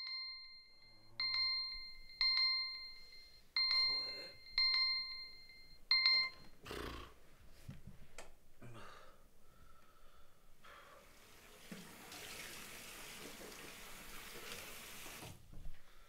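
An electronic alarm clock beeps six times, about one short beep a second, then stops. A thump and a few knocks follow as someone gets out of bed. Then water runs from a tap for about four seconds and is cut off suddenly.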